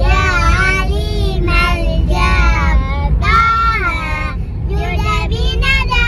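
Young children singing together in high voices, in short phrases, over the steady low rumble of the car cabin.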